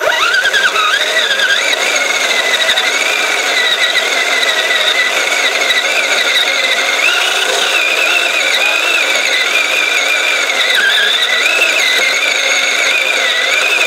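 Kyosho Blizzard RC snowcat's motor and track drivetrain whining as it is driven over snow, the pitch wavering up and down with the throttle, with a rattly clatter underneath.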